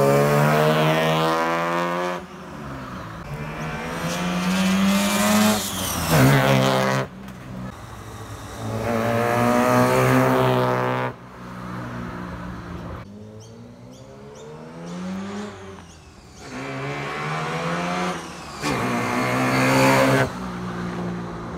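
Mazda Capella's 12A twin-rotor rotary engine revving hard under acceleration, its pitch climbing and then dropping away sharply about five times over.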